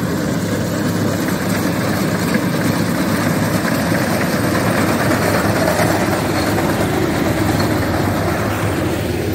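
Compact tracked rice combine harvester running steadily as it cuts ripe rice, its engine and cutting and threshing machinery making a loud, even drone.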